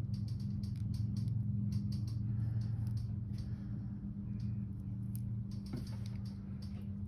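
Light, scattered clicking of small metal jewelry findings and beads being handled with pliers, over a steady low hum.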